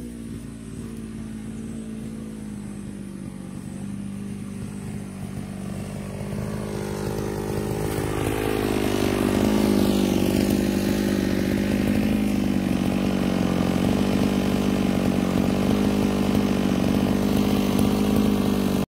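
Petrol brush cutter engine running at a steady speed, growing louder as it approaches over the first half, its pitch dipping slightly as it comes close, then loud and steady until it cuts off suddenly.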